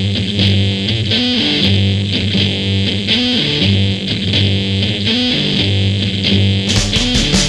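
Rock instrumental: a distorted electric guitar riff over bass, with drums and the full band crashing in near the end.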